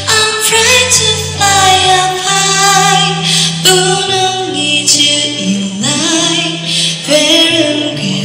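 A female singer singing a Mandarin ballad live, holding long notes with vibrato over instrumental accompaniment.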